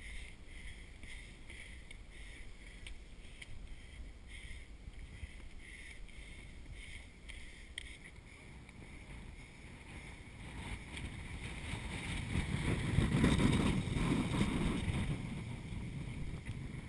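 A trail runner's footsteps, about two a second, picked up by a body-worn camera. Wind rumbles on the microphone, growing to a strong gust from a little past the middle before easing off.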